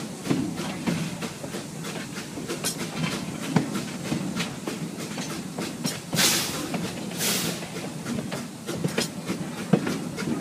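Restored steam train moving slowly, its wheels clicking and clattering over the rails with a steady rumble. Two loud bursts of steam hiss come about six and seven seconds in.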